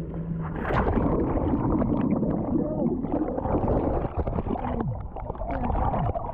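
Water splashing and churning around jet skis, starting with a sudden splash under a second in.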